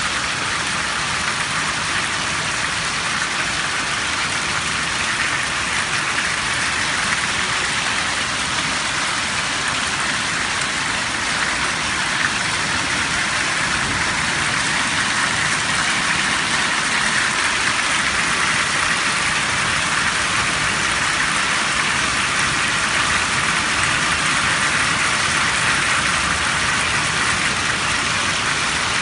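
Heavy rain pouring steadily, a dense even hiss of drops on the ground, puddles and roofs, growing a little louder partway through.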